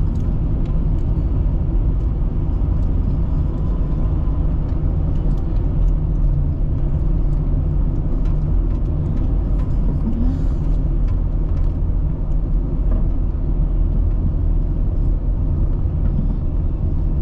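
Car driving at a steady pace: a continuous low rumble of engine and tyre road noise.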